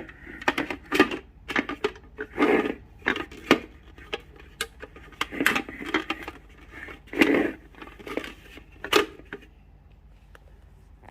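Plastic parts of a cat drinking fountain handled and fitted together: irregular clicks and knocks with short rustles, dying down near the end.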